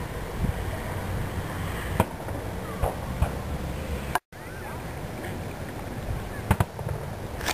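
Fireworks going off: scattered sharp bangs from bursting shells, one about two seconds in, two softer ones just after, and a close pair near the end. The sound cuts out for an instant just after four seconds in, where two clips are joined.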